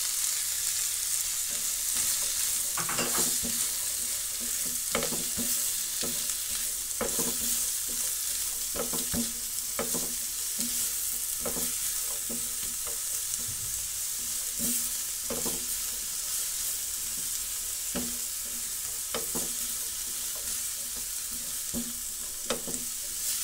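Chopped Chinese cabbage and carrots sizzling in butter in a pan, tossed with a spatula in strokes about once a second over a steady frying hiss.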